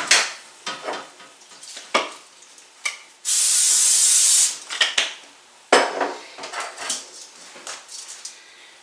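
Pans and utensils clattering, with a burst of aerosol cooking spray: a steady hiss lasting about a second and a half, about three seconds in.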